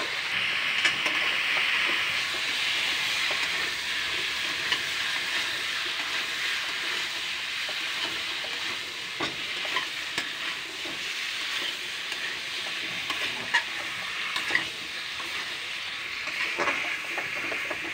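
Potato, cucumber and green beans sizzling steadily in oil in a metal kadhai, stirred with a steel spatula that scrapes and clicks against the pan now and then.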